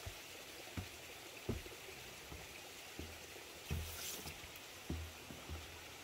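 Footsteps of someone walking across a wooden boardwalk and onto a dirt trail: dull, uneven low thumps about one to two a second, over a steady faint hiss. A brief rustle comes about four seconds in.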